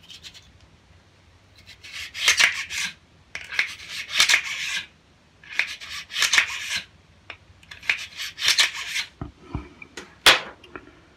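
Bore brush scrubbing back and forth inside a Bond Arms derringer's 9mm barrel during cleaning, in four rasping bouts of about a second each, with a sharp click about ten seconds in.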